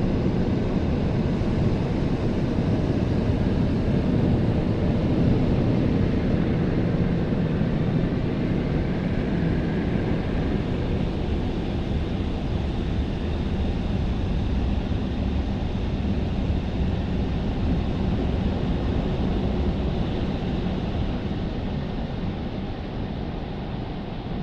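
Tammermatic T700 rollover car wash working over the car, heard from inside the cabin: a loud, steady rushing noise that eases slightly near the end.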